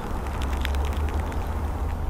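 Light rain pattering, with scattered close drops ticking over a steady low rumble.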